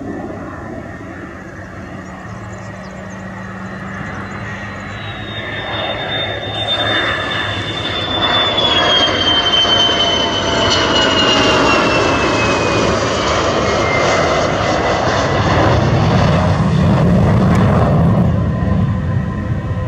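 F-16 fighter jet's single turbofan engine on landing approach, growing louder as it closes in. About five seconds in a high whine sets in and slides steadily down in pitch as the jet passes, and near the end a low rumble takes over.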